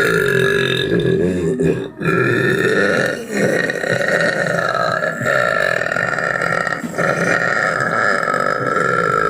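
Long, drawn-out burping, held almost without pause, with a short break about two seconds in and a few fainter catches, stopping at the very end.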